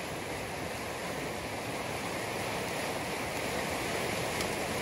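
Steady rushing of a muddy flash-flood debris flow carrying logs and branches down a creek, slowly growing louder.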